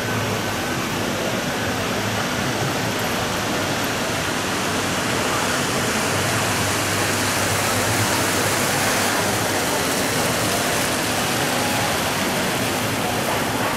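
Steady rushing and splashing of a fountain: an even, loud hiss of falling water with no breaks.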